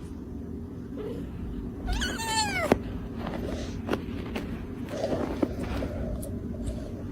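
A cat meows once about two seconds in, the call falling in pitch, over a steady low background hum. A few sharp clicks follow.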